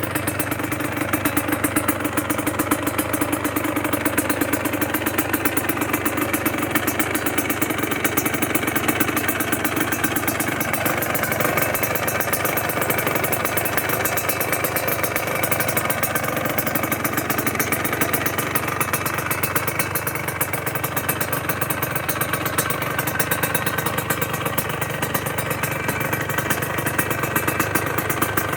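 Calima 175 motorcycle engine idling steadily through an aftermarket Kimoto Superbike muffler, a fast even beat of exhaust pulses.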